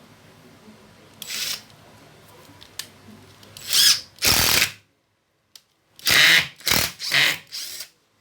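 18-volt cordless drill being test-run in a series of short trigger pulls, about seven bursts, its motor speeding up and winding down with each one.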